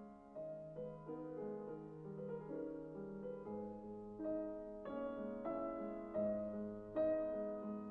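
Soft background piano music: a slow melody of single notes over low sustained bass notes.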